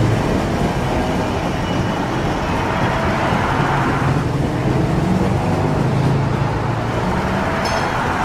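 Bulldozer's diesel engine running steadily under load, its noise swelling and easing a few times.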